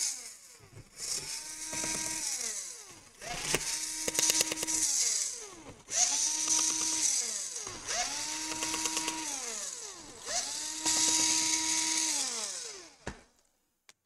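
Small electric screwdriver backing out laptop heatsink screws in about five short runs. Each run spins up to a steady whine, holds, then winds down, with brief pauses between.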